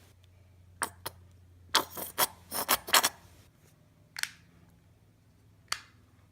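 Lotion bottle squirting a few squirts into a bowl: a series of short, sharp clicks and squirts, bunched about two to three seconds in, with single ones near the start and end.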